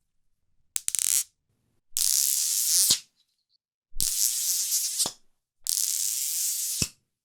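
A pair of singing rattle magnets, four times: each time they give a high-pitched, cicada-like buzzing rattle of about a second that ends in a sharp click as the magnets snap together. The first one is short and choppy.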